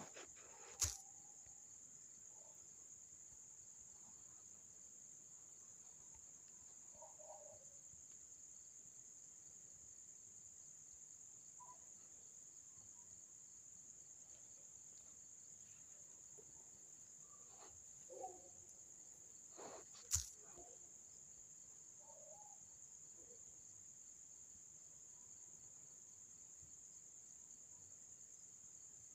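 Near silence: a faint, steady high-pitched hiss or whine, broken by a few short clicks, the loudest about a second in and about twenty seconds in.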